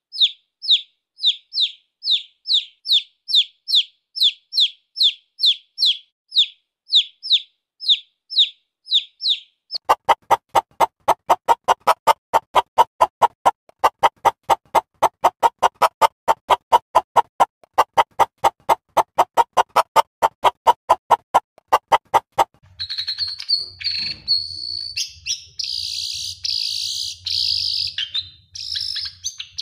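Chicks peeping: a steady series of high, downward-sliding peeps, about two a second. About ten seconds in, the peeping gives way to a fast train of short, lower clicking pulses, about five a second, which stops suddenly after some twelve seconds. Then birds sing over a low hum.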